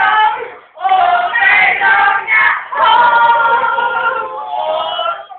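A group of voices singing together in overlapping held notes, unaccompanied, with a brief break a little under a second in.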